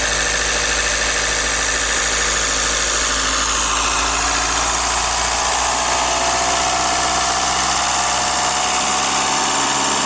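Volkswagen Jetta's four-cylinder common-rail turbodiesel running steadily above idle at about 1,800 rpm. Its pitch climbs slowly from about four seconds in as the revs rise toward 2,100 rpm.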